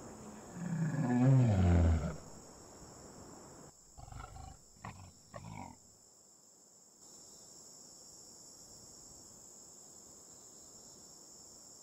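Male lion roaring: one long, loud call falling in pitch, then a few shorter, quieter grunts about four to six seconds in.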